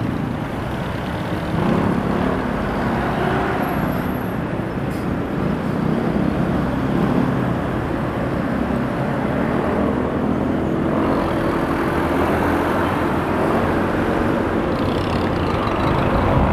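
Honda Beat 110 FI scooter on the move: steady wind and road rumble on the handlebar-mounted microphone, with the scooter's small single-cylinder engine droning underneath and surrounding traffic.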